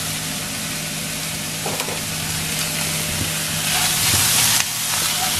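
Corned beef with garlic and onion sizzling as it fries in a pan, stirred and scraped with a spatula. The sizzle swells for about a second near the end, then drops suddenly.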